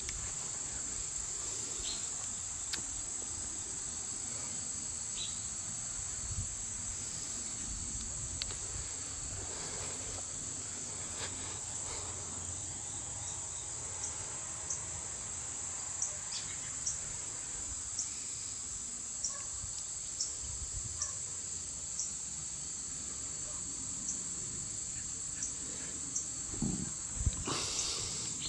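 Steady high-pitched chorus of insects, with a faint low rumble underneath and a few light clicks.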